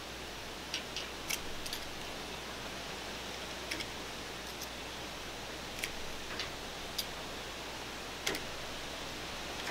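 Utility knife trimming excess window-screen mesh along the frame, heard as about ten sharp little clicks at irregular intervals as the blade cuts through the mesh, the loudest about 8 seconds in, over a steady hiss.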